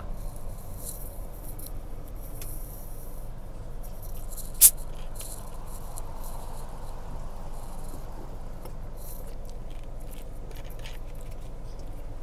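Steady low rumble of a car's cabin in slow traffic, with light scattered tapping of wet snow and rain on the windscreen. One sharp click sounds about four and a half seconds in.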